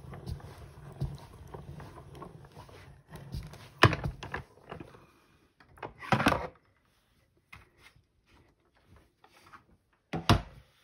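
Hand-cranked Stampin' Cut & Emboss machine being turned, its rollers drawing the stack of plastic plates through with a low, steady grinding rumble for the first few seconds. Then comes a sharp clack about four seconds in, a scraping slide of the plastic plates around six seconds, and a loud knock near the end as the plate stack is handled.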